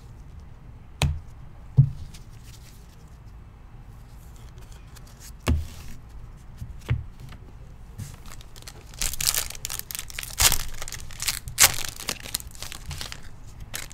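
Four dull thumps, then a foil trading-card pack wrapper crinkling and tearing as it is ripped open, in a run of crackly bursts that are the loudest part.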